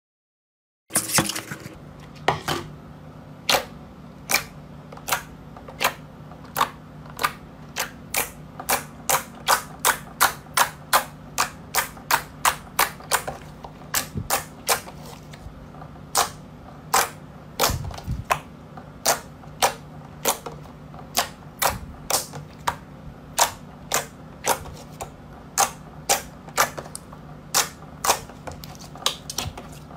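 Glossy slime being poked and pressed with the fingers, giving sharp clicking pops as air pockets burst, roughly two a second and unevenly spaced, over a faint low hum. The clicks start about a second in.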